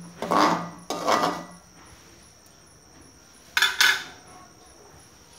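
Metal slotted spoon scraping and clinking against a metal pan as it stirs a thick gravy: two quick strokes, then one more clatter about three and a half seconds in.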